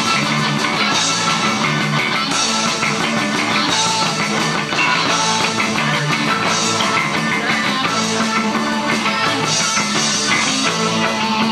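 Live rock band playing, with electric guitar, bass and drums; a bright cymbal-like splash recurs about every second and a half.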